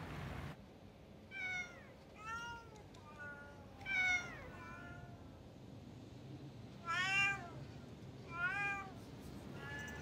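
Domestic cats meowing repeatedly: about eight short meows, most of them arching up and down in pitch, the loudest about four and seven seconds in.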